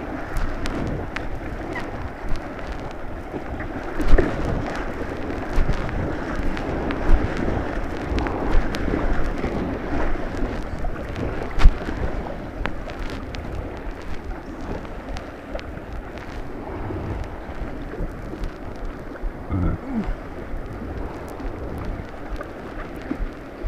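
Rushing white water around a kayak, with splashing paddle strokes and sharp knocks throughout, heard close up through a deck-mounted camera's microphone. The two loudest knocks come about four seconds in and near the middle.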